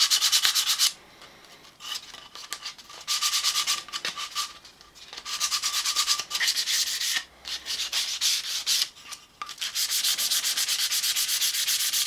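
Sandpaper rubbed by hand along the edges of a wooden vise jaw, 240 grit knocking off the edges. Quick back-and-forth scratching strokes come in several spells with short pauses between them.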